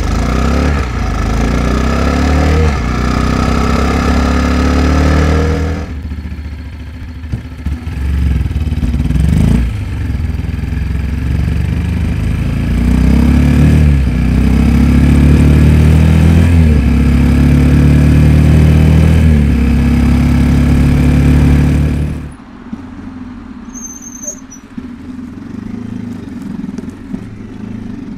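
Blata 125 BXM supermoto's stock 125 cc four-stroke single-cylinder engine running at low revs, its note rising and falling with the throttle through several short runs. About three-quarters of the way through it goes quieter, and the brake pads give a brief high squeal.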